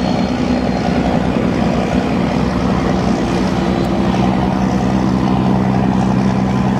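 A high-speed catamaran ferry's diesel engines running under way, a steady low drone with the rush of its churning wake.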